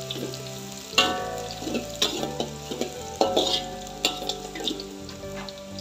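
Metal spatula stirring and scraping chopped greens in a thin aluminium wok as they sizzle in hot oil. There are about four sharp clanks of the spatula against the wok, roughly a second apart.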